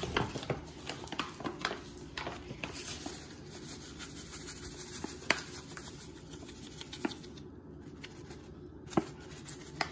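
Light clicks and rustles of hands handling kitchen items, most frequent in the first two seconds, over a low steady hum; two sharper clicks about five and nine seconds in.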